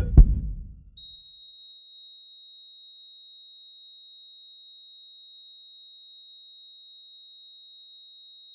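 Two heavy low thumps a fraction of a second apart, the double beat of a heartbeat, then a steady high-pitched pure electronic tone starts about a second in and holds unbroken.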